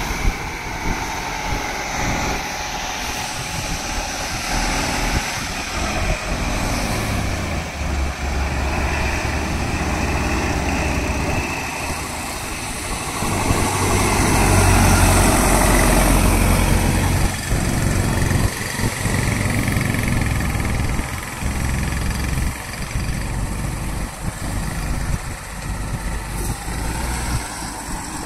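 Heavy diesel truck engine labouring at low revs on a steep climb under load, its revs sagging as the truck loses the hill. Other traffic passes close by, and the sound swells loudest about halfway through as another truck goes past.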